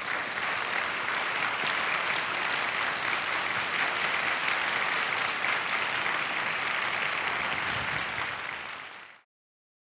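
Audience applauding steadily, then cut off about nine seconds in.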